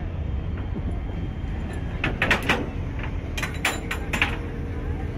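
A vehicle engine running steadily at low revs while a lowered truck is loaded onto a flatbed tow truck's steel deck. A few sharp metallic clanks and knocks come about two seconds in and again a second or so later.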